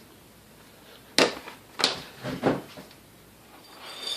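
A few sharp knocks and clunks of hard objects being handled and set down: one about a second in, another just under a second later, then a couple of smaller knocks.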